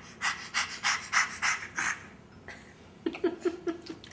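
A baby panting like a dog: a run of quick, breathy huffs, about three a second, then a brief pitched vocal sound about three seconds in.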